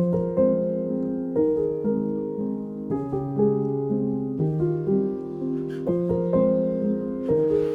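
Background music: a piano melody with held chords, the notes changing about every half second.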